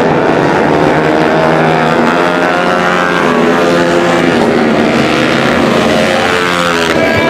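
Several Honda CRF150L-based supermoto race bikes, single-cylinder four-stroke engines, running hard and overlapping. Their pitch rises and falls as they accelerate and shift, and it drops near the end as bikes pass or brake.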